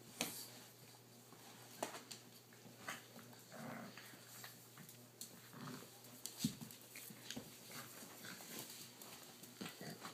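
Boston Terrier and puppies play-fighting: scattered scuffles and claw clicks, with a few short soft growls.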